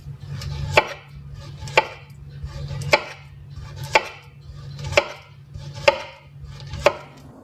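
Knife chopping fruit on a cutting board: seven sharp chops at about one a second, over a steady low hum.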